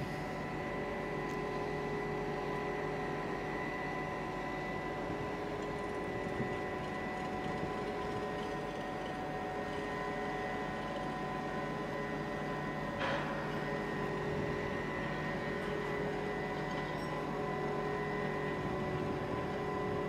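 Diesel power pack (207 kW Cummins) of a Goldhofer PST/SL-E self-propelled modular trailer running steadily: a constant engine drone with a steady whine on top. A brief clatter about two-thirds of the way through.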